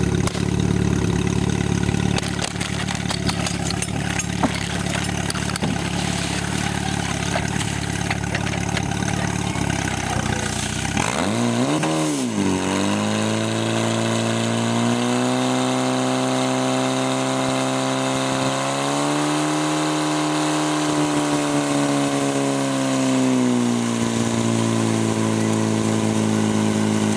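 A portable fire pump's engine idling, then dipping and revving up sharply about eleven seconds in. It then runs at high speed, its pitch stepping up and down as it drives water through the hoses to the jets.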